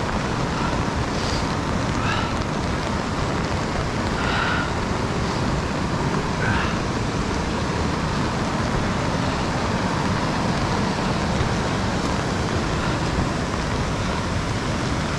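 Steady rushing of the Youghiogheny River's rapids, an even wash of water noise, with a few faint short chirps or crunches over the first seven seconds.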